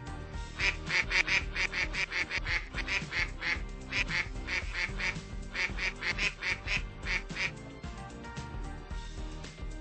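A duck quacking rapidly, about four quacks a second in several runs lasting roughly seven seconds, over background music.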